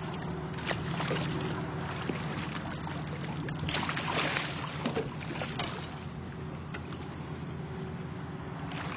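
A boat motor runs steadily under loud splashing as an arrowed bighead carp thrashes at the side of the boat, about three and a half to five seconds in, with a few sharp knocks.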